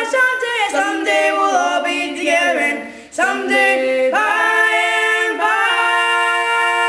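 Two men singing a gospel song a cappella in close harmony. Their voices move through a phrase, break briefly about three seconds in, then settle into a long held closing chord.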